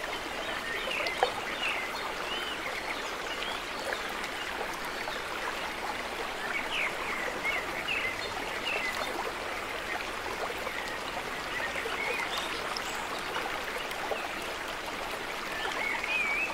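Steady running-water noise with scattered short, high bird chirps, and a single sharp click about a second in.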